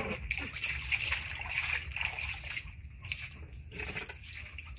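Water sloshing and splashing irregularly in a large plastic tub as a baby monkey paddles in it.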